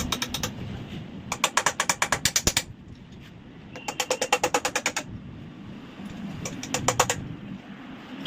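Ratchet clicking in four quick runs of about ten clicks a second, with short pauses between the runs.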